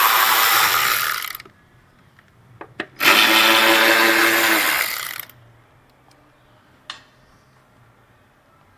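Cordless power tool spinning a 10 mm socket, run in two bursts of about two seconds each with a motor whine, backing off the small nuts that hold the wheel-well liner. A few light clicks come between and after the bursts.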